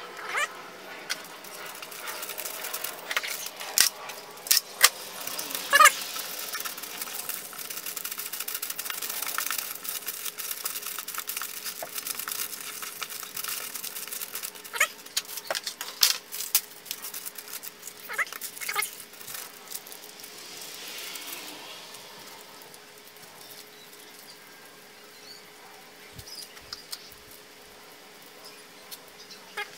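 Scattered clicks and knocks from hand work, with a hiss for a few seconds, and a domestic cat meowing now and then.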